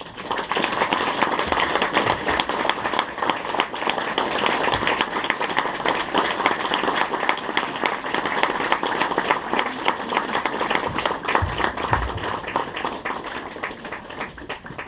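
Audience applause that breaks out suddenly and fades near the end.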